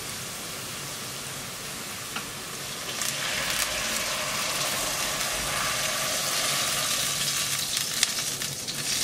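Sizzling of onion, pennyroyal and paprika frying in oil in a stainless-steel pot. About three seconds in, water is poured in from a plastic jug, and a louder steady rush of pouring and hissing takes over.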